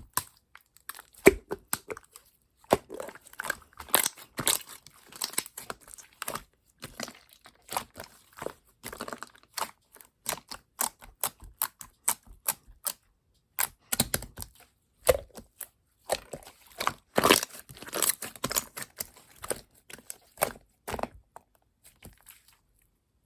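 Glossy clay slime being squished and stretched by hand, making a dense, irregular run of sticky clicks and pops, with a brief pause about halfway and a quieter stretch near the end.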